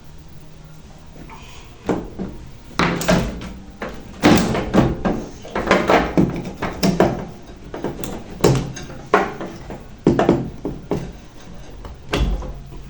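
Repeated knocks, clunks and rattles of a microwave oven's casing and control panel being handled and taken apart, starting about two seconds in and going on in irregular clusters until near the end.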